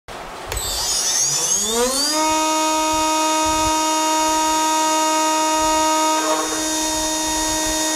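CNC router spindle with a 1/8-inch up-spiral bit spinning up: a whine rises in pitch over about a second and then holds a steady high whine at full speed. About six seconds in, a rougher grinding noise joins as the bit starts cutting into the 6061 aluminum plate.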